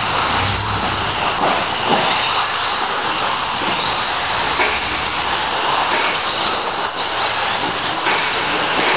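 TLR 22 electric 1/10-scale 2WD RC buggies racing: a steady hissing whine of motors and tyres on the dirt track.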